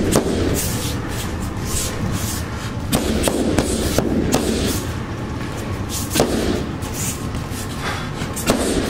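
Escrima stick and gloved fists striking a heavy punching bag: irregular sharp slaps and thuds, sometimes two in quick succession.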